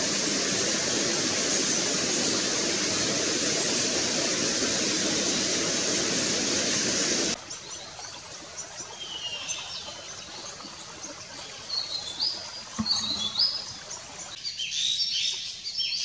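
A steady rushing noise cuts off abruptly about seven seconds in. After it, small forest birds chirp and whistle in short high calls, which grow busier near the end.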